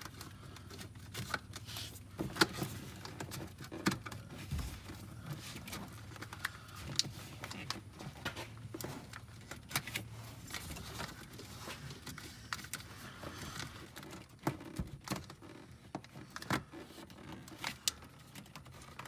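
Rubber vent hoses being handled and routed through a side-by-side's engine bay: scattered rustling and rubbing with light, irregular clicks of hoses against plastic and metal parts.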